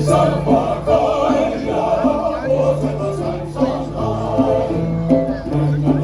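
Music with singing voices over held, slowly changing bass notes.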